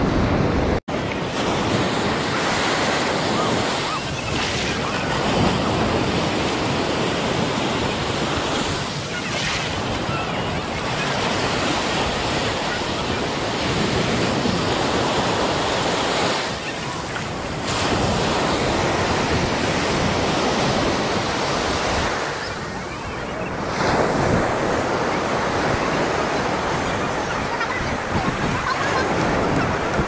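Ocean surf washing onto a beach, a continuous noise of breaking waves with wind buffeting the microphone. The sound cuts out for an instant about a second in.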